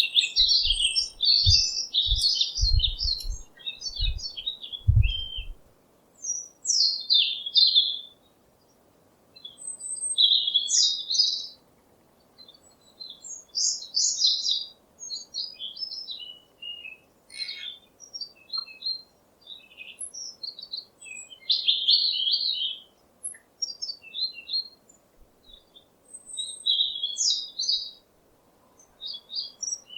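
Small birds chirping: short phrases of quick, high twittering calls, with pauses of a second or two between them. A few low thumps come in the first five seconds.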